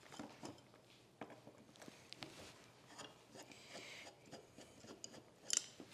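Faint clicks and scraping of a screwdriver turning out the frog screws of a cast-iron hand plane, with a louder clack just before the end.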